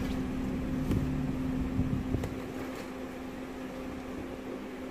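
Steady low hum of a parked car left running, heard inside the cabin, with a few faint knocks about one and two seconds in.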